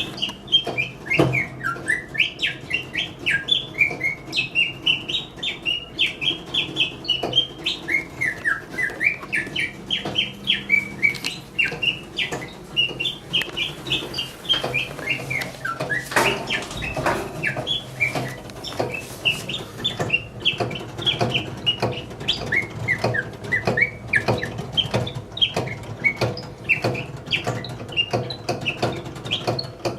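Mechanical singing-bird automaton warbling: a rapid, unbroken run of chirps that rise and fall in pitch, over a steady low hum with frequent clicks.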